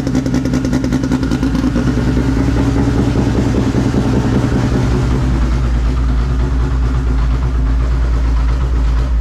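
Turbocharged Toyota MR2 drag car's engine idling loudly and steadily.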